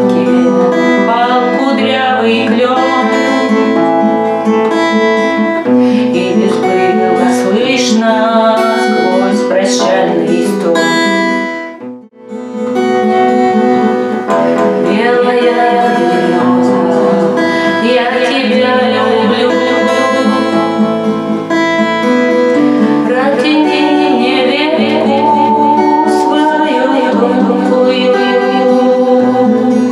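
Acoustic guitar strummed in a chord accompaniment, breaking off briefly about twelve seconds in before the strumming resumes.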